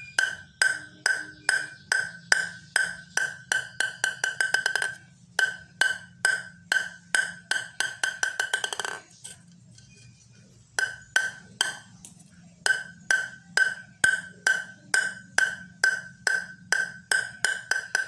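A ping-pong ball bounced over and over on a bare Yinhe M101 (Mars 101) blade with no rubber on it, about two to three bounces a second. Each bounce is a sharp click with a high ring. Twice the bounces speed up into a quick patter as the ball settles, with a pause of about two seconds midway. The sound is very loud and ringing with a strong rebound, the sign of a hard blade (five wood plies and two polyethylene-carbon layers).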